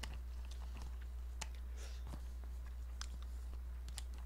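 Eating instant ramen from its foil-lined packet: chopsticks clicking and rustling in the crinkly packet, with chewing, as scattered short clicks and brief crinkles over a steady low hum.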